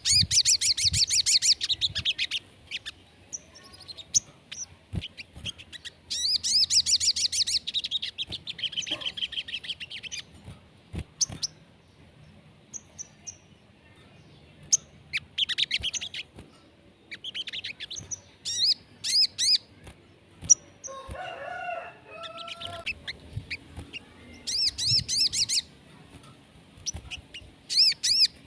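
Sogon bird song: runs of rapid, high repeated chirps lasting one to three seconds each, coming again and again with short pauses, as used on a stimulus track to set caged sogon birds singing. About 21 seconds in, a lower, rougher bird call breaks in briefly.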